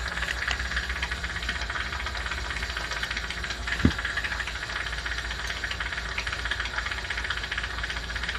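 Steady machine hum with a hiss, with a single sharp click about four seconds in.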